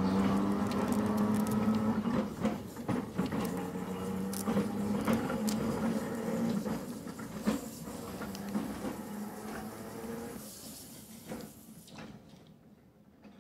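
Seaton Tramway electric tram No. 11 passing close and running away along the rails: a steady motor hum with irregular clicks of the wheels on the track, fading as it draws off.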